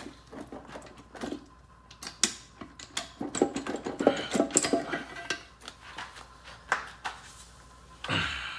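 Steel gear stacks of a Honda manual transmission clinking and knocking against each other and the aluminium case as they are lifted out by hand, a string of irregular metal clicks. A longer rustling handling sound comes near the end.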